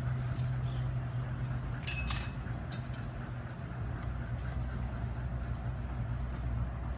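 Steady low mechanical hum, like a motor or engine running. About two seconds in comes a brief cluster of metallic clinks.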